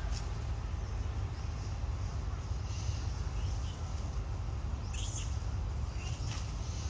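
Faint, short, high animal chirps in forest, heard about three seconds in and twice more near the end, over a steady low rumble.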